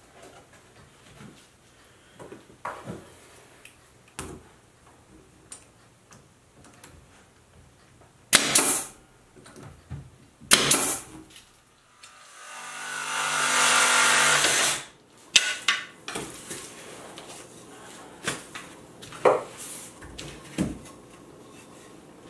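Cordless DeWalt jigsaw rough-cutting a cedar shingle, running about three seconds and rising in pitch and loudness as it comes up to speed. Before it come two short loud bursts, with light wooden knocks and handling noises scattered around.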